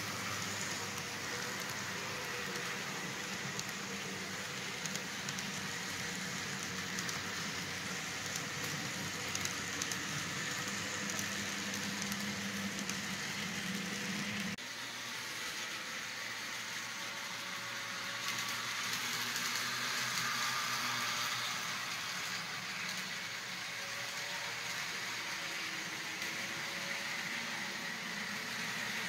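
Model freight cars rolling along a model railroad track: a steady rolling rattle of small wheels on rails with faint clicks. A low hum underneath drops out about halfway through.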